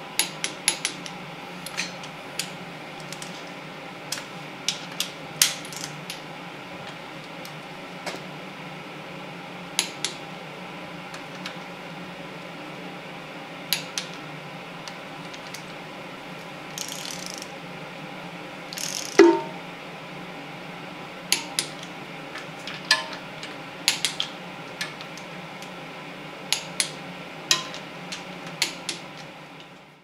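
Ratchet wrench clicking in short quick runs as the timing chain cover bolts are run down and tightened, with one louder ringing metallic click about two-thirds of the way through. A steady hum runs underneath.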